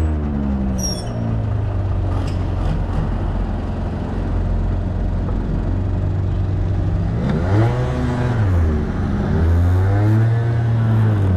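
Motorbike engine heard from the rider's seat, running at low road speed; its pitch rises and falls as the throttle is opened and eased about two-thirds of the way through, then holds a steadier, higher note near the end.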